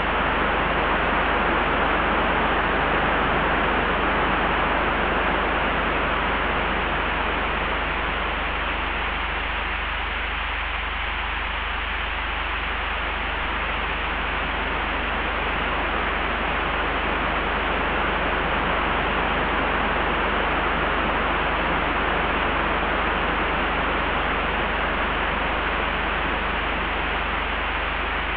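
Layered wind ambience: a steady rushing of wind over a constant low rumble, easing slightly about ten seconds in and building again.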